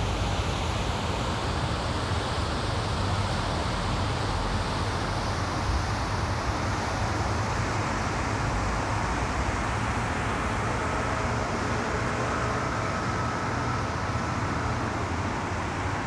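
Steady wind buffeting the microphone, a constant low rumble and hiss, mixed with the drone of road traffic.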